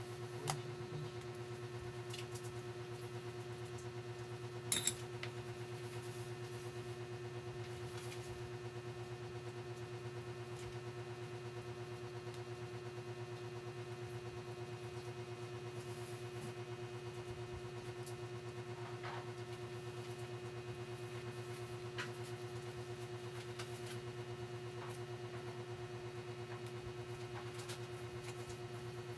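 A steady low hum with a fainter, higher steady tone over it, broken by a few light clicks, the loudest a quick double click about five seconds in.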